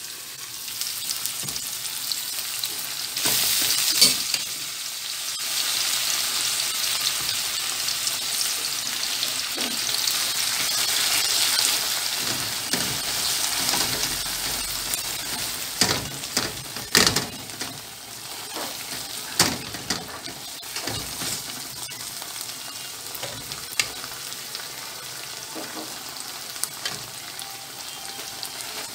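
Boiled mung beans sizzling in hot oil with sautéed onions in a metal pan, stirred and pressed with a spatula that clicks and scrapes against the pan. The sizzle is loudest in the first half and dies down later.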